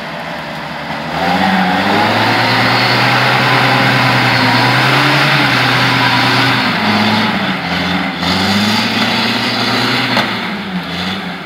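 UAZ-469 off-roader's engine revving under load as it pushes through deep mud, getting loud about a second in, its pitch rising and dipping with the throttle.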